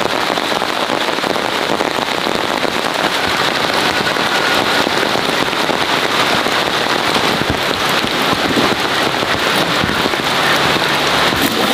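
Steady rain falling on forest foliage: a dense, even hiss of countless drops.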